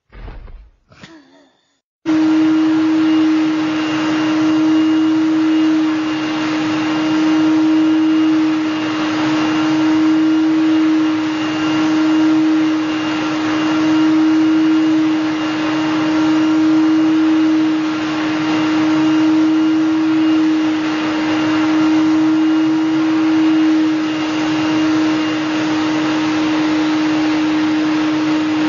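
Vacuum cleaner running with a steady hum, its hose nozzle being run over a cat lying on a sofa. It cuts in suddenly about two seconds in, after a brief faint sound, and swells slightly every couple of seconds.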